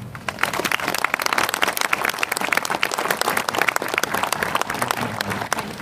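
Audience applauding, many people clapping, the clapping thinning out near the end.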